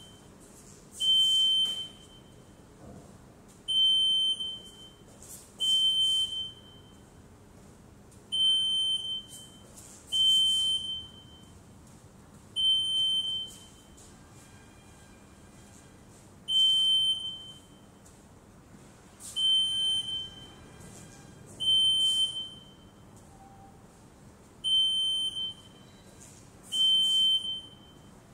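Uniqscan UB500 walk-through metal detector sounding its alarm: a single high-pitched beep about a second long, repeated roughly every two seconds with a couple of longer pauses, each one triggered by a mobile phone being carried through the archway.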